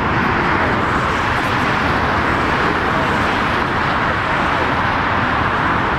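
Airbus A320neo's CFM LEAP-1A turbofan engines at taxi idle, a steady, even roar that neither rises nor falls.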